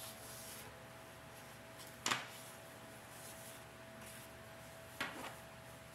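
Paper index cards being handled and laid down on a table: two short, sharp sounds about three seconds apart, over a faint steady hum.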